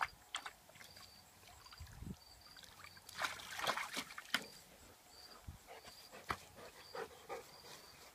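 Water splashing and sloshing in a plastic kiddie pool as a black Labrador paws and steps through it, with a longer splash about three seconds in as the dog climbs out and scattered small splashes around it.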